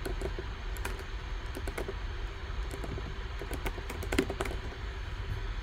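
Typing on a computer keyboard: irregular key clicks with a few pauses, the loudest cluster about four seconds in, over a steady low hum.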